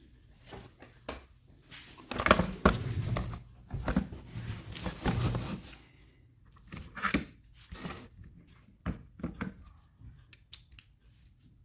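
Small tools and plastic parts being handled at a workbench: irregular clicks, taps and short scrapes, busiest between about two and six seconds in, then a few scattered clicks.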